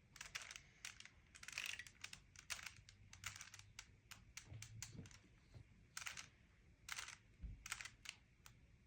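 Rubik's cube being twisted by hand: a faint, irregular run of plastic clicks and rattles as the layers turn.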